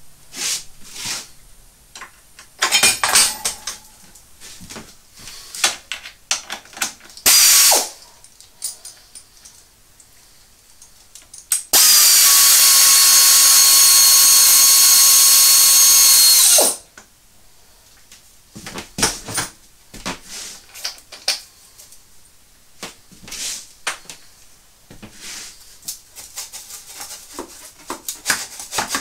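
A cordless power drill/driver undoes bolts at a motorcycle's exhaust silencer mount. It runs in two short bursts, then one steady run of about five seconds around the middle. Metal tools clink and knock in between.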